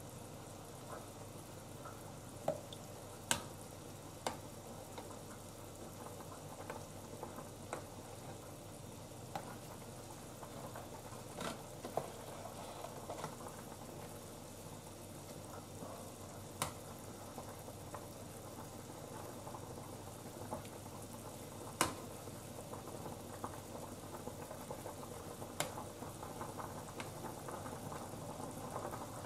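Pot of beef stew broth simmering with a steady bubbling while a metal ladle skims off the scum, clinking sharply against the saucepan about eight times at irregular intervals.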